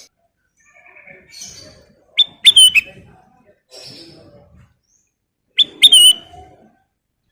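Ruby-throated bulbul (kutilang emas) singing: two loud, short phrases of sharp whistled notes, one about two and a half seconds in and one near six seconds, with softer calls between them.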